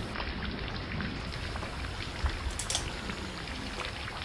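Steady rain falling, an even hiss dotted with small drop ticks, with a brief sharp click about two and a half seconds in.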